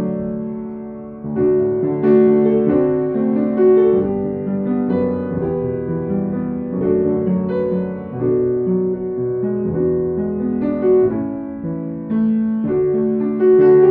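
Piano music playing held notes in a flowing melody, dipping briefly just after the start before a new phrase swells in about a second in.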